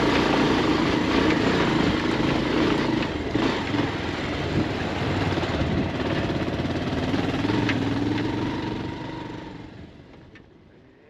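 Bajaj Pulsar 220F's single-cylinder engine running under way on a rough dirt road, with a few brief knocks from the bike over the ruts. The sound fades away over the last couple of seconds.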